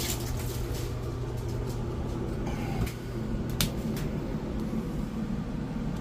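Whirlpool Duet front-loading washer's drain pump running with a steady low hum, a couple of sharp clicks about three and a half seconds in. The pump has just been cleared of a clog and is pumping again.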